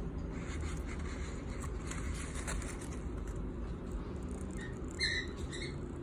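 Nestling cockatiel chicks giving three short, high squeaky peeps near the end, the middle one loudest, over a steady low hum.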